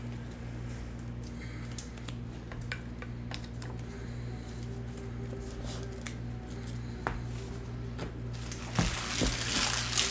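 Light clicks and taps of trading cards being handled and sorted on a table, over a steady low hum. Near the end, a louder rustling and crinkling sets in.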